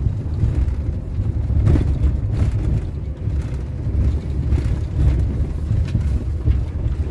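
Pössl Roadcamp 540 camper van driving, heard from inside the cab: a loud, steady low rumble of engine and tyres, with a few light knocks.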